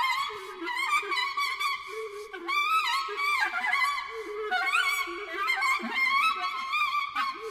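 Solo clarinet in A playing a fast, unbroken stream of overblown notes, the pitch flickering and jumping rapidly as the B-flat and E-flat trill keys are worked over changing fingerings.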